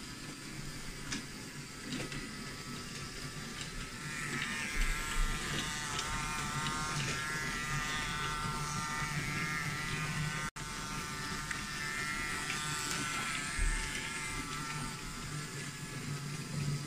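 Small electric motors of battery-powered Brio wooden toy trains whirring, a buzzing whine that grows stronger about four seconds in and wavers in pitch, with a few light clicks.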